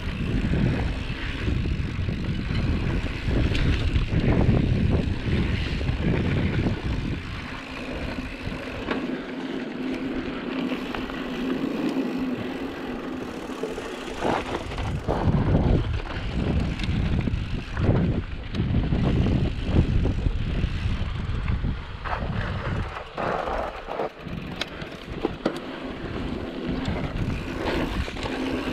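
2016 Intense Spider 275c mountain bike descending a loose dirt trail at speed: wind rushing over the action camera's microphone and tyres rolling on dirt. A steady buzz runs through the first half, and sharp knocks and rattles come over bumps around the middle and later.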